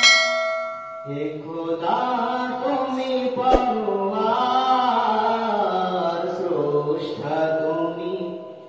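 A man singing a Bengali Islamic gojol (ghazal) solo, with no instruments, into a microphone, in long, slowly wavering held notes. There is a brief break about a second in and a short knock about three and a half seconds in.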